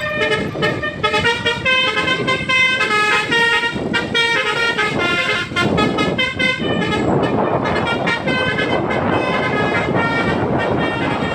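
A bus's telolet horn, a multi-tone musical air horn, playing a quick tune of stepped notes over and over. After about six seconds a louder rough noise takes over, and the horn tones carry on more faintly beneath it.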